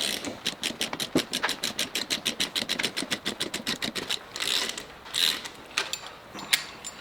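Ratchet wrench clicking rapidly and evenly, about nine clicks a second, for about four seconds as a bolt is run out, then a few scattered clicks and short scrapes of tools and parts.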